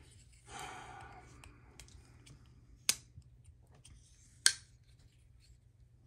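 Brief rustle of handling, then two sharp metallic clicks about a second and a half apart, the second the louder, as a Chris Reeve Large Sebenza 31 titanium frame-lock folding knife is worked and its blade swung open.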